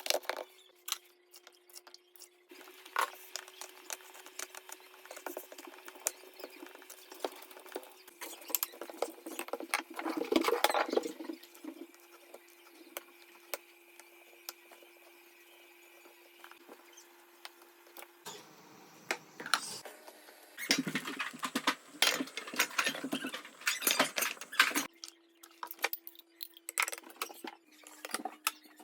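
Kitchen food-preparation sounds: irregular light taps, clicks and scrapes of hands and utensils working, over a faint steady hum, with busier stretches about ten seconds in and again about two-thirds of the way through.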